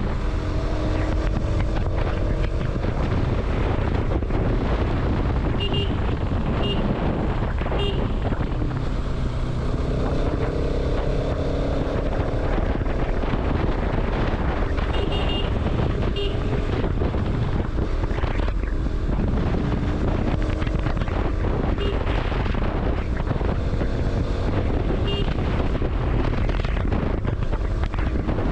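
Heavy wind buffeting on an action camera's microphone on a moving motorcycle, with the engine's note rising and falling underneath. A few short horn toots sound now and then.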